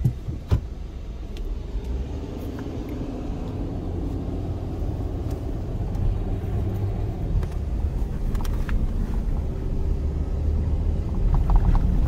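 A 4WD driving on a soft sand track, heard from inside the cab: a steady engine and tyre rumble with a few light knocks and rattles, slowly getting louder toward the end.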